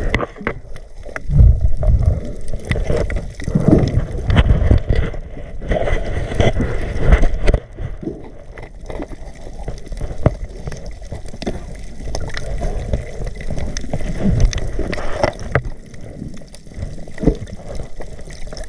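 Water sloshing and gurgling with scattered sharp clicks and knocks, busier and louder through the first half, then calmer.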